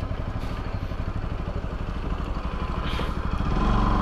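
Motorcycle engine running as the bike rides along, a steady rapid run of low firing pulses that grows louder near the end.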